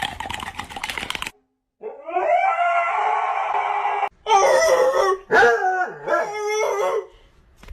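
A dog howling: one long held howl, then a louder stretch of wavering howls. About the first second holds a rattle of clicking noise before a short silence.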